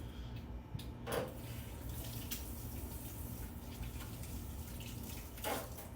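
Kitchen tap water running into a sink while hands are washed under it, a steady splashing hiss.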